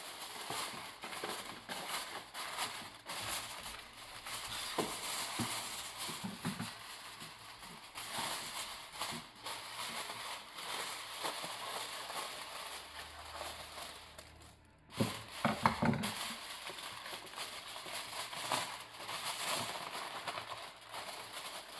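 Aluminium kitchen foil crinkling and crackling as it is pulled off the roll, cut with scissors and crimped around a baking tray's edges, with a louder burst of crackling just after a brief pause about 15 seconds in.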